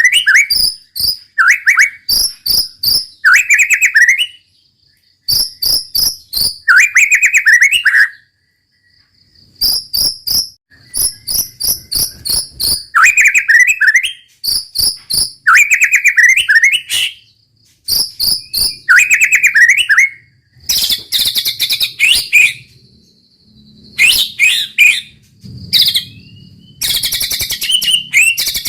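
White-rumped shama (murai batu) singing in full 'gacor' song: bouts of very fast rattling trills mixed with whistled phrases, broken by short pauses.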